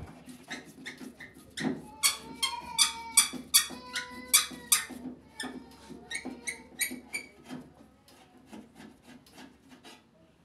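Long screwdriver working a rusty screw out of the metal cabinet of an LG washer dryer: a run of quick clicks with squeaks as the screw turns, squeaking most between about two and five seconds in and tailing off near the end.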